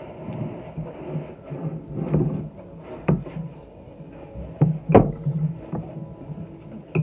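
Close-miked eating of Caesar salad with romaine lettuce and croutons: irregular chewing and crunching. A few sharp clicks of a fork against the bowl come through, the loudest about five seconds in.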